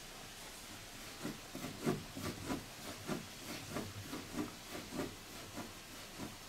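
A hand working the sisal-rope post of a worn-out cat tower, giving an irregular run of knocks and scratchy rustles, two or three a second, starting about a second in.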